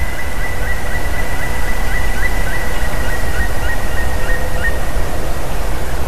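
Black woodpecker calling a long even series of short notes, about four a second, that stops about four and a half seconds in. The calls sit over a loud, steady rush of noise.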